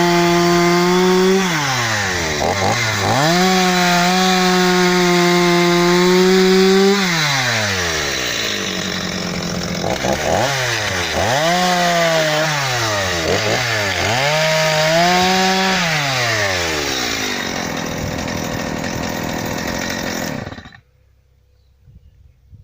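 Stihl MS 230 C two-stroke chainsaw engine (42.6 cc) revved up and let back down several times: held high for a few seconds at a stretch, with quicker blips in between. It then settles to a lower running note and cuts off suddenly near the end.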